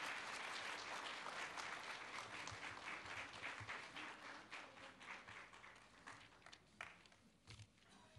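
Audience applauding, dense clapping that dies away over the last few seconds to a few scattered claps.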